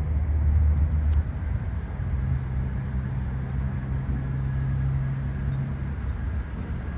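Low, steady rumble of a motor vehicle engine running, its low hum stepping up in pitch about two seconds in, with one brief sharp click about a second in.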